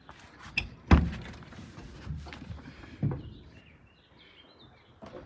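Knocks and thunks from an Ursus 1224 tractor's steel cab step and cab as someone climbs up into the cab: a loud thunk about a second in, a second one about two seconds later, and lighter knocks and rustling between.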